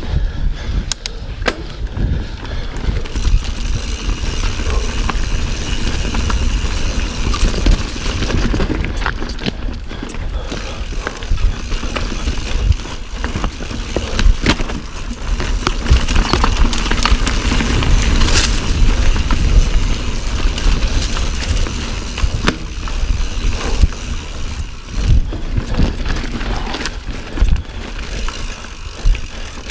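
Mountain bike ridden over rough ground: wind rumbling on the action-camera microphone, with frequent rattles and clatters from the bike over bumps.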